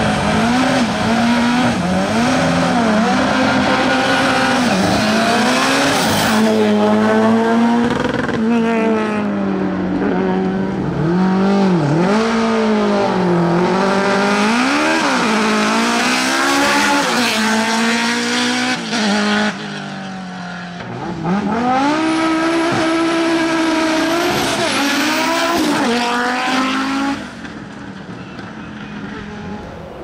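Racing cars at full throttle, one after another, each engine's pitch climbing and then dropping sharply at every upshift. Near the end a thin high squeal rides over one of them.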